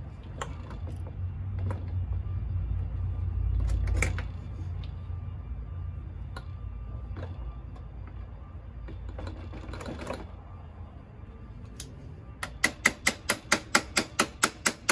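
A ratchet wrench clicking in a fast, even run of about four to five clicks a second on a scooter's front axle nut, starting about twelve seconds in. Before that, occasional light clinks and taps of tools on metal.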